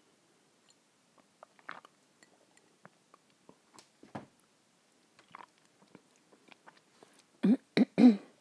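Close-up mouth sounds of eating and drinking milk from a glass: soft swallows, chewing and small lip clicks. Near the end come a few much louder short mouth sounds with a sharp click among them.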